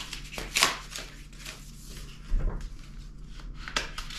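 Sheets of sandpaper rustling as they are handled, with scattered taps and a dull knock about two and a half seconds in.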